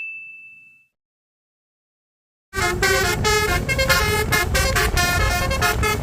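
A ding fades out within the first second. After a gap of silence, a bus's multi-trumpet telolet horn (Basuri type) starts about two and a half seconds in, playing a quick multi-note tune over a low rumble.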